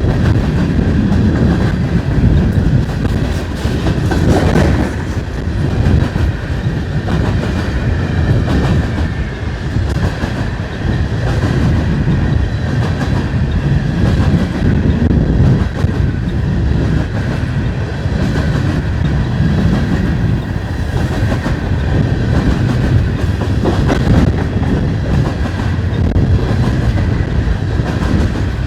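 Freight train rolling past: a steady, loud rumble of the cars, with wheels clicking over the rail joints.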